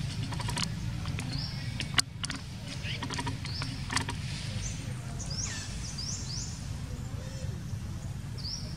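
A series of short, high-pitched chirps and squeaks, several sliding down in pitch, over a steady low rumble, with a sharp click about two seconds in and a softer one near four seconds.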